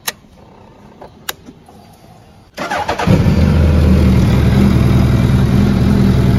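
Suzuki Hayabusa's inline-four started through a Yoshimura silencer: two clicks, then a brief burst of starter cranking about two and a half seconds in, and the engine catches and settles into a loud, steady idle.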